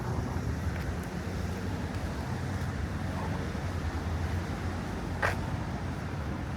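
Steady low rumble of city traffic, with one short sharp click about five seconds in.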